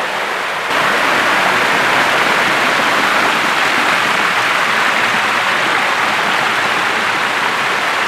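Multi-tiered waterfall rushing over rock ledges into a shallow pool: a steady, loud wash of falling water that grows louder less than a second in.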